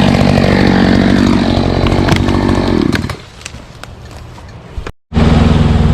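Gas chainsaw running at a steady, high speed, which drops away about three seconds in, leaving a few scattered cracks and snaps. After a sudden break, a steady engine note starts up again near the end.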